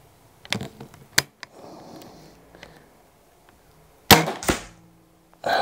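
A .22 Weihrauch HW99S spring-piston break-barrel air rifle fires once about four seconds in: a sharp crack with a short ringing tail and a second knock just after. Lighter clicks come earlier as the rifle is handled, and a short noisy breath or sniff follows near the end.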